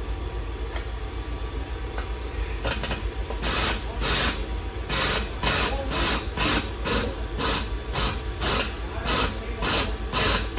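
Hand abrasive strokes rasping back and forth over a car body panel, starting about a quarter of the way in and going at roughly two to three strokes a second, over a steady low hum.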